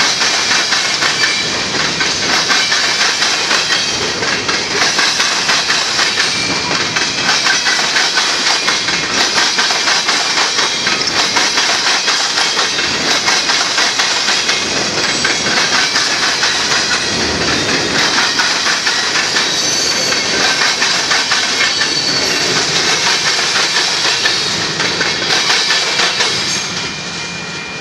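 Freight cars of a BNSF manifest train, covered hoppers and tank cars, rolling past close by. Their steel wheels make a steady clickety-clack over the rail joints, with a hiss of wheel on rail. The sound drops away near the end as the last car passes.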